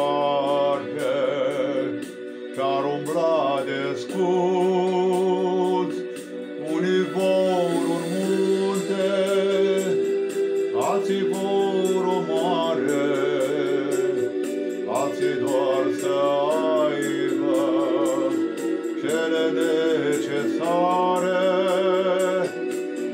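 A man singing a Christian song in Romanian, his voice wavering with vibrato, over instrumental backing music with a steady beat.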